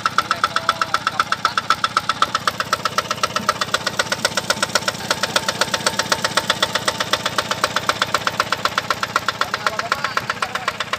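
Yanmar TF65 6.5 hp horizontal single-cylinder diesel engine running steadily with a rapid, even knock, belt-driving an Ebara 3-inch water pump.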